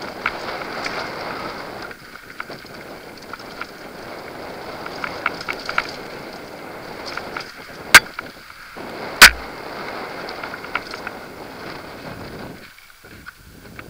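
Mountain bike rolling fast down a dirt and gravel trail: tyre noise on loose ground with small rattles and clicks from the bike, and two sharp knocks about a second apart a little past halfway, the loudest sounds. The noise drops away near the end as the bike slows.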